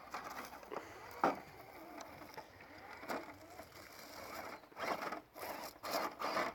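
Small electric motor and gear drivetrain of a radio-controlled rock crawler whirring in short, uneven spurts, with a few sharp clicks and knocks. The busiest stretch comes in the second half.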